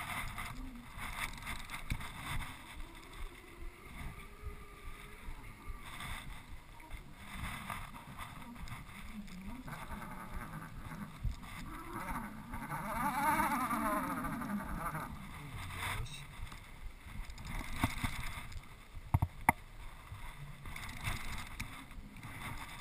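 Water lapping and knocking against an aluminum boat's hull, with rustles and small knocks close by, a louder swell of sound about halfway through, and a few sharp clicks near the end.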